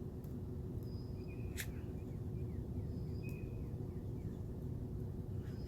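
Outdoor background of a steady low rumble with faint bird calls: short high whistles repeating every second or so, and a quick run of chirps. A single sharp click comes about one and a half seconds in.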